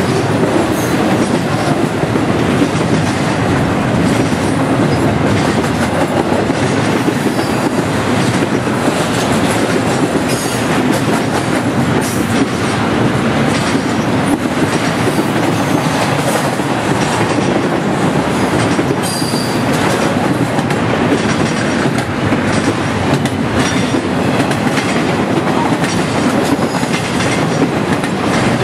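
Norfolk Southern intermodal freight cars, carrying trailers and double-stack containers, rolling past close by. Their steel wheels on the rail make a steady, loud rolling noise, with faint clicks scattered through it.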